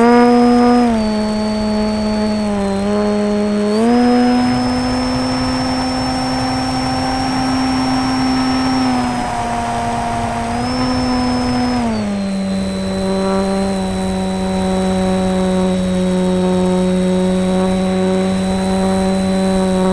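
Electric motor and propeller of a foam RC model plane, heard from the camera on board: a steady whine whose pitch steps up and down with the throttle, dropping to a lower steady pitch about twelve seconds in.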